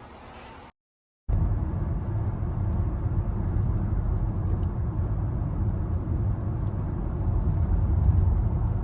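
Steady low rumble of road and engine noise inside a moving car, starting abruptly after a brief silent cut about a second in.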